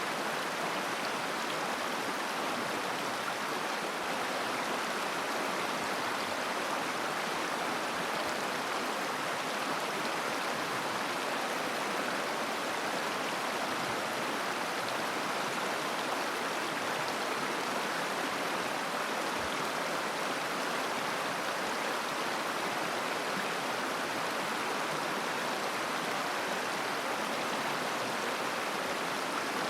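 A river flowing over stones: a steady, even rush of water.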